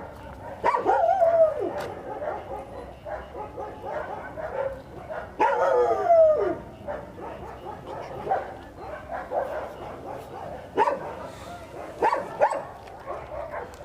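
A dog whining and yipping in drawn-out calls that fall in pitch, one near the start and a longer one about halfway, then a few short yips near the end.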